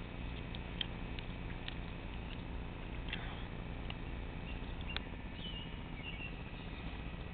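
Small bird pecking and hopping at food, making light irregular taps and clicks, with a brief faint high call a little past halfway.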